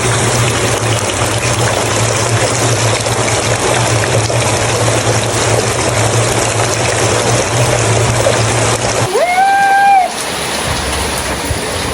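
Heavy rain pouring down in a loud, steady rush. It cuts off abruptly about nine seconds in, and a short steady tone follows.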